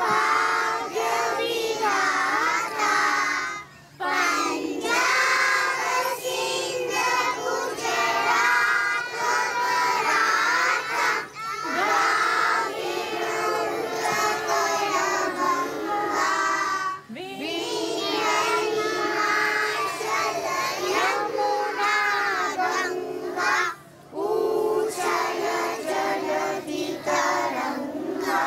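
A large group of young children singing together in unison, with brief pauses between phrases.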